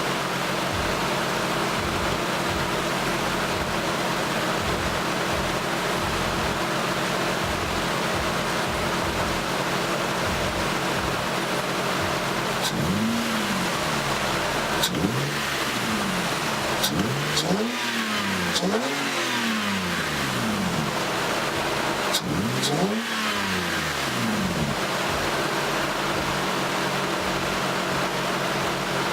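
Lexus IS300's 2JZ-GE inline-six idling, then revved in about five quick throttle blips, each rising and falling in pitch, before it settles back to a steady idle.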